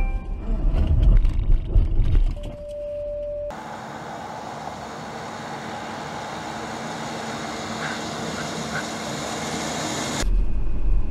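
Car interior road and engine rumble at speed, then a single steady warning beep lasting about a second. After an abrupt cut, a steady hiss of wind and tyre noise that grows slowly louder as the car on the test track approaches.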